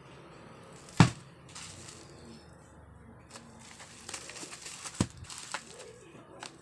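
Bubble-wrapped book parcel being handled and turned over, its plastic wrap crinkling, with two sharp knocks, the louder about a second in and another about five seconds in.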